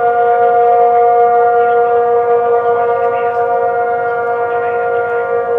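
Several outdoor tornado warning sirens sounding together for a statewide tornado drill test. Their steady tones blend into a held, discordant chord that swells and fades slightly as the rotating sirens turn.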